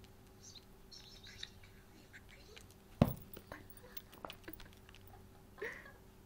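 Faint, high-pitched cat mews and small taps, with one sharp knock about three seconds in as a calico cat paws at a tablet's screen, and a short rising mew near the end.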